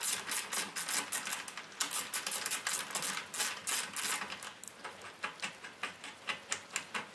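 Socket ratchet clicking rapidly, about five clicks a second, as it backs out a motorcycle foot-peg bolt; the clicks grow fainter and sparser near the end.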